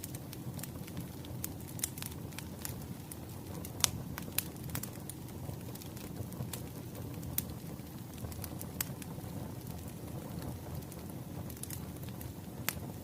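Firewood crackling as it burns: a steady low rumble with sharp, irregular pops, the loudest about four seconds in and near the end.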